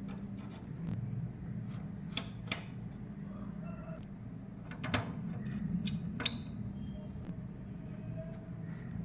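Scattered light clicks and knocks of metal covers being handled and fitted onto an ASIC miner's hashboards, four sharper ones standing out, over a steady low hum.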